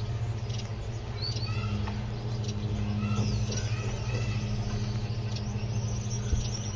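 A steady low mechanical hum, with a few short, faint, high bird chirps in the first half.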